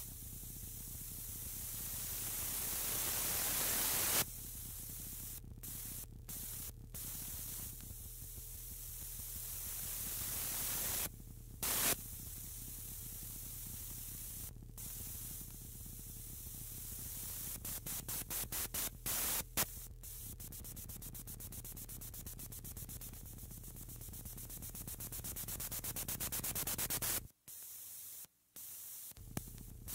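Experimental electronic noise music: a white-noise hiss over a steady low hum, swelling for about four seconds and then cutting off sharply. Scattered clicks and short noise bursts follow, then twice a train of clicking pulses that speeds up and grows louder, and the sound drops out abruptly near the end.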